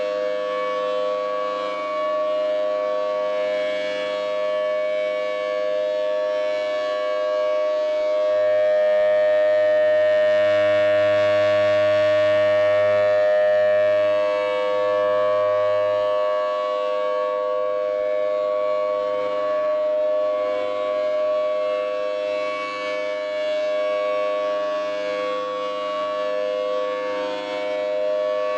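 Outdoor civil-defense warning siren sounding a steady wail of two held pitches. It grows louder for several seconds midway and then eases back.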